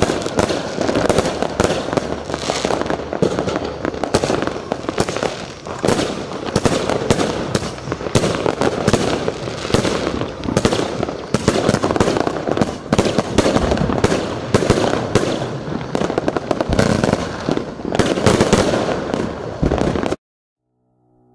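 Broekhoff Crown Majestic 281-shot consumer firework cake firing in a rapid, unbroken volley of shots and bangs. It stops suddenly about twenty seconds in.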